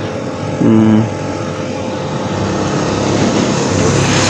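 A motorcycle approaching along the road, its engine and tyre noise growing steadily louder and peaking as it comes close by near the end.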